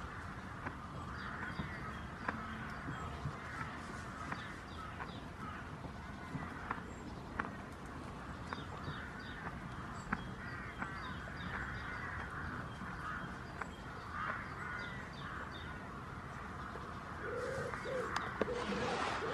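Farmyard chickens clucking, with small birds chirping, short repeated calls throughout and scattered sharp clicks; the calling grows louder near the end.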